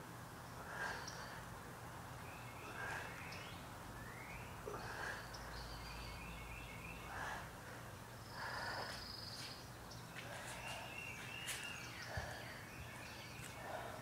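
A person breathing hard during push-ups and stretches, with a rush of breath about every two seconds. Birds chirp in the background.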